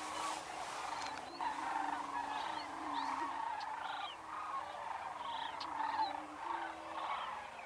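A chorus of male greater prairie-chickens booming on a lek: overlapping low, steady hoots, each about half a second to a second long, repeated throughout. Behind them is a dense chorus of sandhill crane calls and short, higher bird calls.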